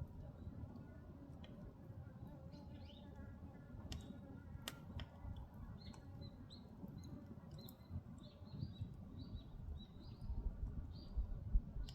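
Firewood burning in a traditional Korean agungi firebox: a low rumble of the fire with scattered sharp crackles and pops. From about halfway in, small birds chirp in quick short notes.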